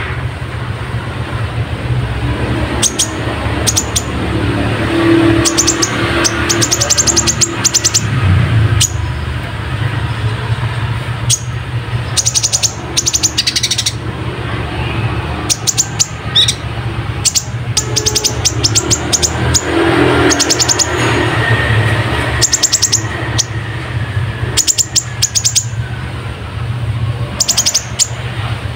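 Kolibri ninja sunbird singing: bursts of rapid, very high, sharp chirps repeated throughout, a song filled with tree-sparrow-like chirps, over a steady low background rumble.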